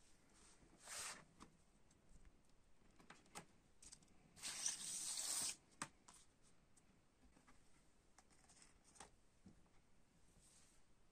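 Quiet paper rustling and sliding as a vinyl LP in its paper inner sleeve is pulled out of a cardboard gatefold jacket. There is one louder sliding swish of about a second near the middle, and soft taps and rustles around it.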